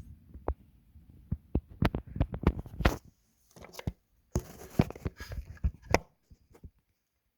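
Irregular clicks, taps and knocks of small hard parts being handled, coming in two clusters with a short pause between them and dying away about a second before the end.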